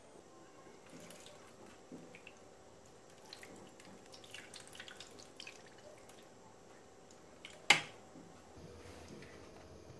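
Scattered light taps and ticks, like small objects being handled, with one sharp click about three quarters of the way through.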